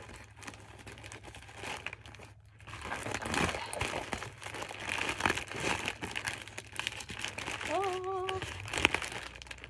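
Shipping package being opened by hand: faint rustling, then louder crinkling and tearing of the packaging from about three seconds in.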